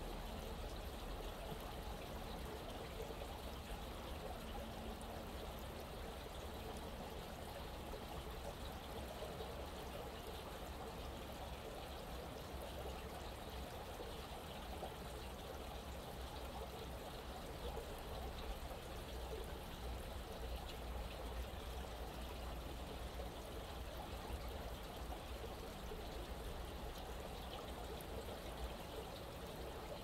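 Small stream flowing with a steady trickle of running water.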